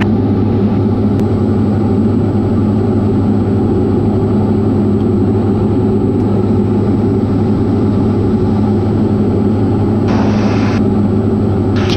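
Diamond DA40's engine and propeller droning steadily in cruise, heard inside the cabin. A short burst of hiss comes about ten seconds in.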